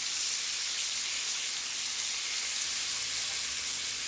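Chicken breasts sizzling on a hot grill, a steady frying hiss.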